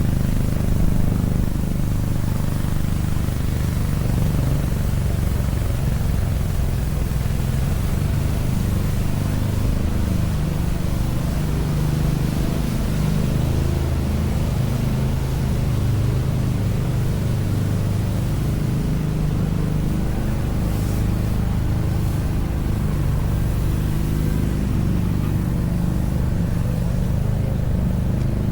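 Steady low rumble of street traffic, vehicle engines running on the avenue.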